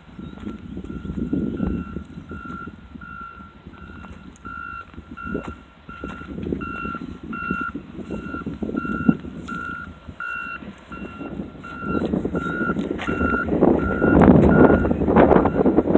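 Vehicle backup alarm beeping steadily at one pitch, about two beeps a second, over a low rumble that grows louder in the last few seconds.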